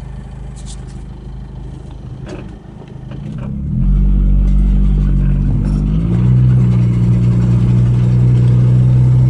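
Dodge Ram 50 pickup under acceleration: a loud low drone sets in about four seconds in and drops in pitch about six seconds in. This is the intermittent noise that comes only when speeding up and not in reverse, which the owner calls a metallic squeal or grinding and cannot identify.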